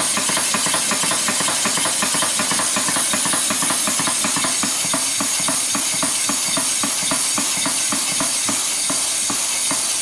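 Roberts duplex steam pump running on compressed air: a steady hiss of air exhaust with a fast, even clatter of the pistons and valves shifting back and forth. With no water in the pump end it bangs a little on each stroke, which the owner says stops once it has water in it.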